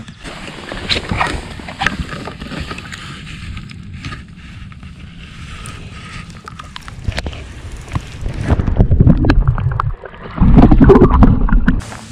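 Water sloshing and splashing close to the microphone as a largemouth bass is lowered into the lake and released. Over the last few seconds comes loud, low rumbling buffeting on the microphone.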